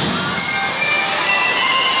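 Drum and lyre band's bell lyres ringing out a phrase of clear metallic notes, one after another, with the drums dropping out.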